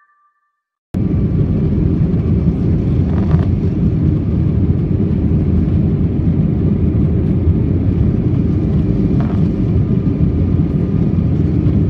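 Steady cabin noise of an airliner in flight: a loud, even low rumble of engines and rushing air, starting abruptly about a second in after near silence.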